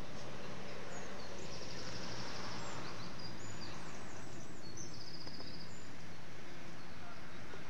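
Steady outdoor background noise with small birds chirping: short high chirps and two rapid trills, one about a second and a half in and one around five seconds.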